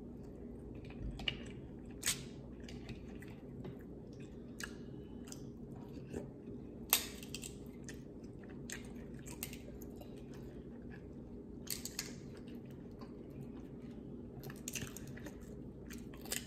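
Close-up chewing of boiled seafood, with scattered sharp cracks and crunches as shellfish shells are snapped and peeled by hand, the loudest about seven seconds in. A steady low hum runs underneath.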